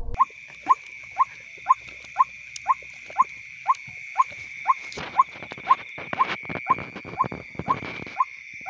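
White-breasted waterhen (ruak-ruak) calling a monotonous series of short rising 'kook' notes, about two a second. A steady high insect drone sounds underneath.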